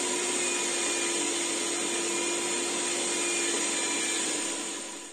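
Electric meat grinder running steadily under load as pork and beef are pushed through it, with a constant motor hum. The motor is switched off near the end and the sound dies away.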